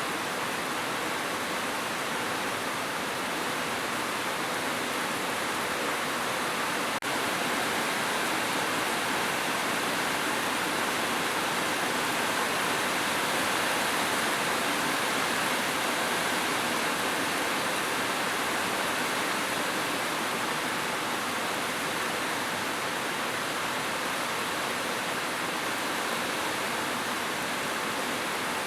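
Heavy rain falling steadily on a roof, an even, unbroken hiss with no thunder. There is a split-second dropout about seven seconds in.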